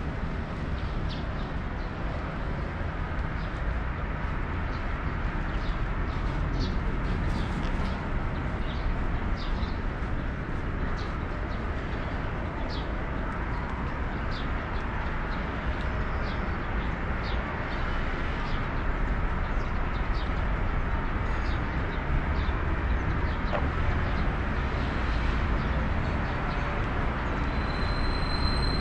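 Steady city traffic rumble with small birds chirping in short, scattered calls throughout, and a brief high steady tone near the end.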